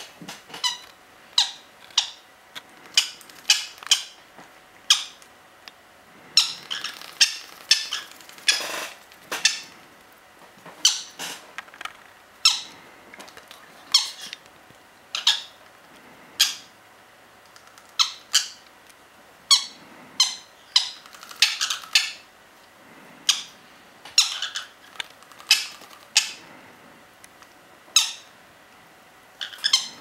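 Green-cheeked conure chicks giving short, sharp squawks, about one or two a second and sometimes in quick pairs, while being hand-fed from a syringe: begging calls for food.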